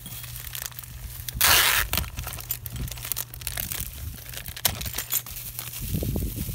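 Plastic parts bag crinkling as small motorcycle clutch parts are handled, loudest in a half-second rustle about a second and a half in, with scattered light clicks of metal parts and bolts being set down.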